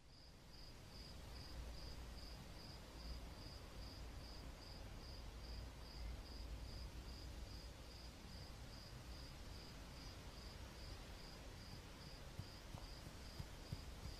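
Faint night ambience: a cricket chirping in an even rhythm, about two chirps a second, over a low steady rumble. It fades in at the start.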